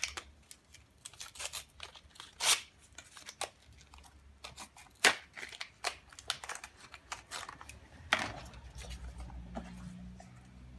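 Packaging being handled and opened: irregular crinkling, rustling and tearing, with a few louder sharp snaps about two and a half, five and eight seconds in.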